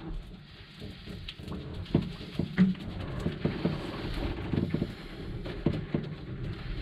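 Irregular soft taps, rubbing and dabbing as gloved hands and a small roller work epoxy-wet fibreglass cloth down onto a panel, with a couple of sharper knocks about two seconds in.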